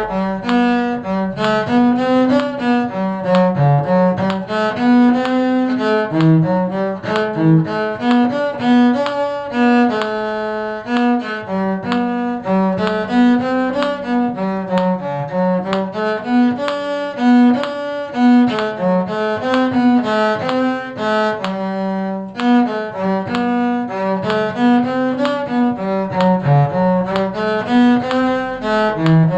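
Bowed string parts playing a tune together in a steady rhythm: a melody in violin range over a moving low cello line, with many short notes.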